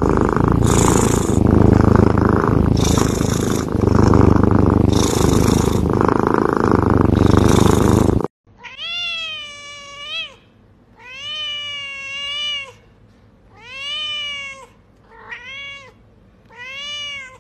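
A sleeping cat purring loudly and steadily, swelling with each breath about every two seconds. About eight seconds in it cuts off, and a cat meows five times, each call rising and then falling in pitch.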